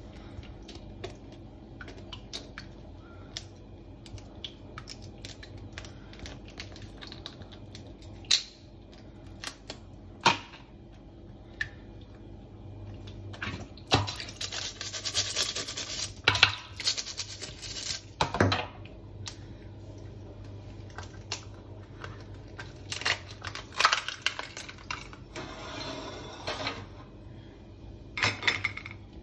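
Cooked blue swimmer crabs handled in a stainless steel sink: scattered clicks and cracks of shell and legs being pulled apart and knocking on the metal. About halfway through, a small brush scrubs the crab's underside in a scratchy burst lasting a few seconds, and near the end the tap runs briefly over the crab.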